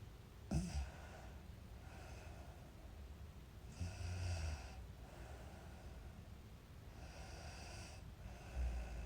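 A sleeping girl snoring: noisy breaths in and out repeating about every four seconds, with a short sharp sound about half a second in.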